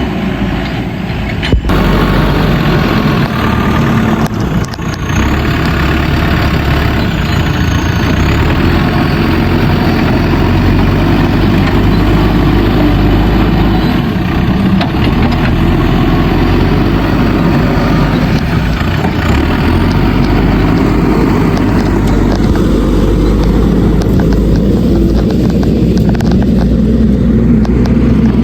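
Heavy diesel machinery running steadily: the engine of a JCB backhoe loader working soil, with tractor engines alongside. Past the middle the hiss in the upper range fades and a steady engine hum comes to the front.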